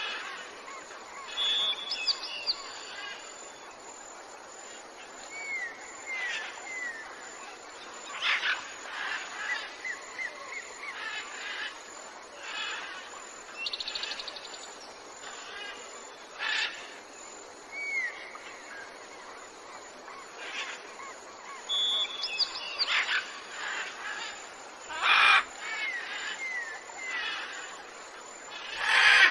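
Mixed birdsong: several birds calling, with thin high whistles, small hooked chirps and a few louder, harsher calls, over a steady outdoor background.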